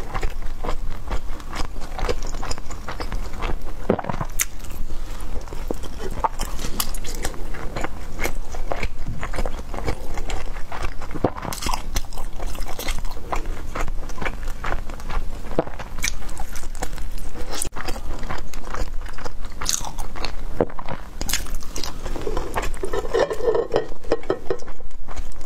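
Close-miked chewing and biting of food: a steady run of wet smacking and clicking mouth sounds, with a louder mouth sound a little before the end.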